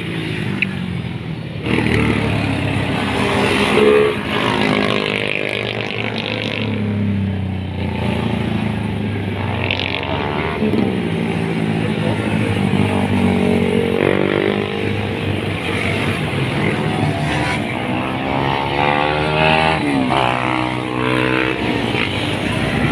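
Several motorcycles passing one after another at speed, engines revving hard, their pitch climbing and falling again and again as each bike goes by.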